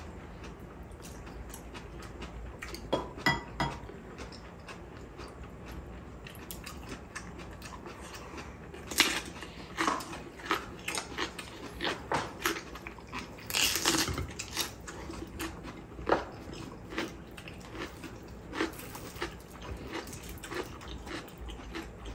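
Close-miked eating sounds: chewing and biting into cabbage-leaf wraps, with utensils clicking against dishes. The sounds are sparse at first and become a run of short, sharp crunches and clicks from about nine seconds in.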